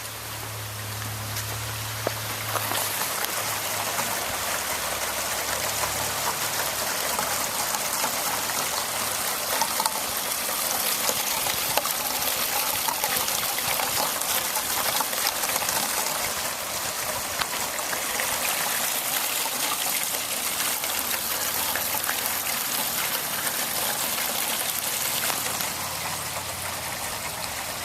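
Heavy rain in a steady downpour, with water running and trickling as runoff.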